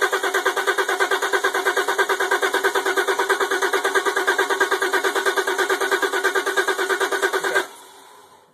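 Audi A6 engine cranking on the starter motor in a fast, even rhythm without catching, then cutting off abruptly near the end: the car won't start.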